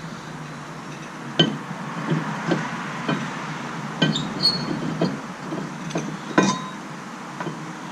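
Metal brake parts and hand tools clinking and knocking together as a rear brake caliper bracket is handled and fitted. Scattered sharp knocks come about a second apart, the loudest a little past six seconds in.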